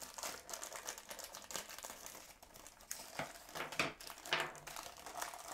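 Thin clear plastic bag crinkling and crackling as hands handle it and take small plastic figure parts out of it, with a few sharper crackles in the second half.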